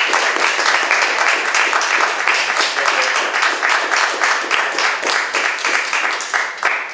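An audience applauding, a dense, steady patter of many hands clapping that stops abruptly near the end.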